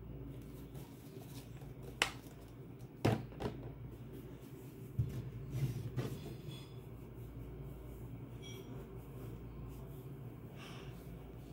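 A few sharp knocks and clicks of things being handled and set down, bunched in the first half, over a steady low hum.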